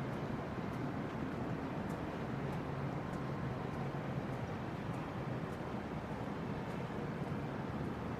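Steady outdoor city background noise with a low, even hum running under it and a few faint ticks.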